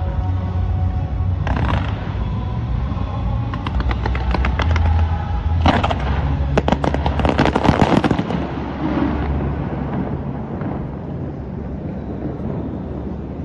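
Fireworks going off in rapid volleys of bangs and crackles. They are densest and loudest between about four and eight seconds in, then die away.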